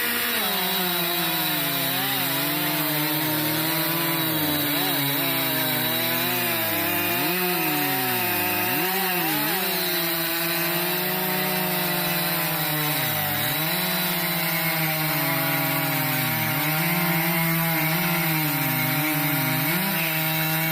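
Two-stroke chainsaw running at high revs and cutting wood, its pitch dipping again and again as the chain bogs down in the cut, then recovering.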